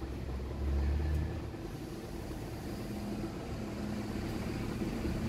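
Low steady hum of a desktop PC running after power-on, with no POST beep from the motherboard. The board stays silent with a single DDR4 stick fitted, a sign that something is still wrong.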